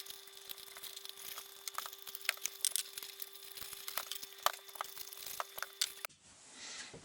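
Scattered light clicks and crackles of small objects being handled, over a faint steady hum; both stop about six seconds in.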